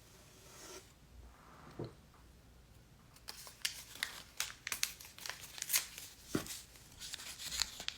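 A toy figure blind pack being torn open, its wrapper crinkling and crackling in quick, uneven bursts from about three seconds in.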